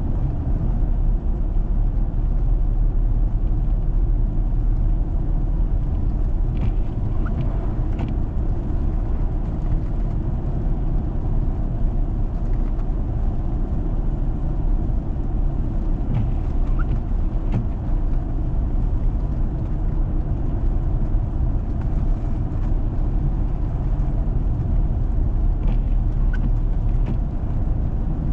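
A four-wheel-drive vehicle driving on a snow-covered road: a steady low rumble of engine and tyres, with a few faint clicks.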